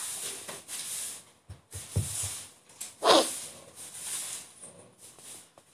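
A short breathy sound about three seconds in, over a steady hiss, with a soft low thump a second before it.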